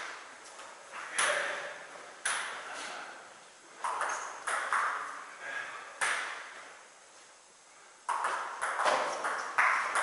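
Table tennis ball clicking off bat and table, each hit trailing a long echo in the hall. A few single hits come first, then from about eight seconds in a quick run of hits as a rally gets going.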